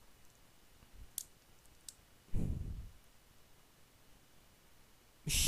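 Two light clicks a little over a second in, then a duller thump a little after two seconds, over faint room tone. A brief loud noise comes just before the end.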